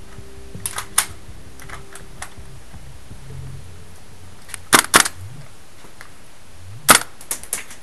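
Sharp, dry snaps of airsoft gunfire: a few faint ones in the first two seconds, a loud pair just before the middle, and a quick burst of about four near the end.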